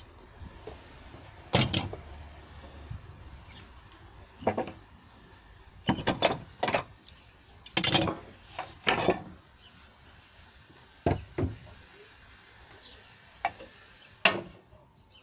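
Scattered knocks and clunks of a wooden lever board and G-clamped steel as thin steel is bent over an angle-iron edge in a homemade bending jig, some in quick clusters, the loudest a little after a second and near the middle.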